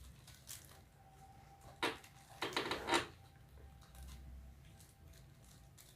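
Small hard objects being handled on a table: a single knock just under two seconds in, then a short clattering rattle about half a second later.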